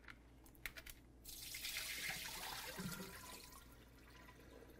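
Salt water being poured out of a glass bowl of cut Thai eggplants into a sink: the salt soak is drained off while the eggplants are held back by hand. A couple of small clicks come about half a second in, then the pour splashes from about a second in and dies away before the end.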